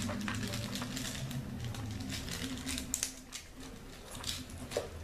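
Thin plastic wrapping crinkling and rustling as fingers pick it open, a run of light crackles and clicks over a steady low background hum.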